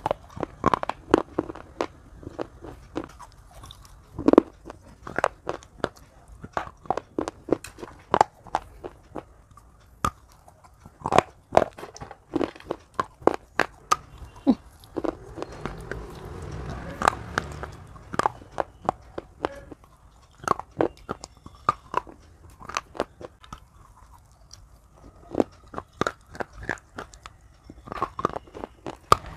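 Baked clay pipe being bitten and chewed close to the mouth: an irregular run of sharp, dry crunches and cracks.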